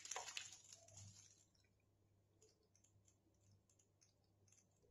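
Boiled diced vegetables sliding from a steel bowl into thick simmering gravy, a soft uneven sound that fades out about a second in; then near silence.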